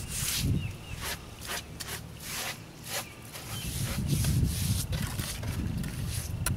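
Damp sponge rubbed in repeated strokes over fresh mortar on a concrete catch-basin rim: a rough scrubbing sound, about two to three strokes a second.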